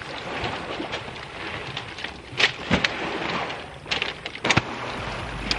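Stiff PVC fabric of an inflatable kayak's carry bag rustling and crinkling as it is opened and handled on beach pebbles, with a few sharp clicks or knocks. Music starts near the end.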